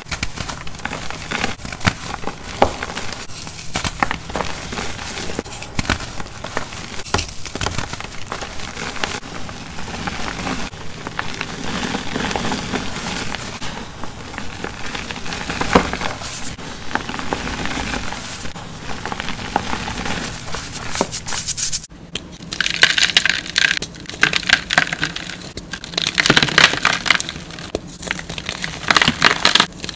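Hands squeezing and crumbling reformed gym chalk, a steady crackling, powdery crunch. About 22 seconds in, it changes to louder, sharper crunches in separate bursts as firmer dyed chalk blocks are crushed in the hand.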